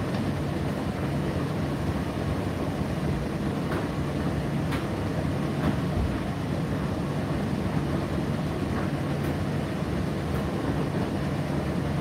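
Indesit IDC8T3 8 kg condenser tumble dryer running mid-cycle: a steady low rumble and hum, with a few faint light clicks scattered through it.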